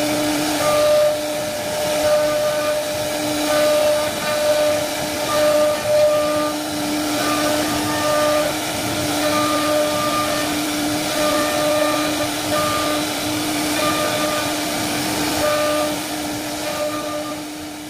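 CNC router spindle running as its bit carves grooves into an MDF board: a steady whine over a hiss of cutting, the tone dropping out and coming back as the cut goes on, and fading near the end.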